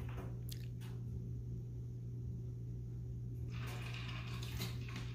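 A couple of light clicks as a bottle cap is twisted off, then liquid pouring from a plastic bottle into a glass for about a second, starting about three and a half seconds in, over a steady low hum.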